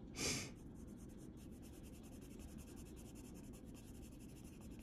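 Coloured pencil scratching on paper in quick, light, repeated strokes. A brief hiss right at the start.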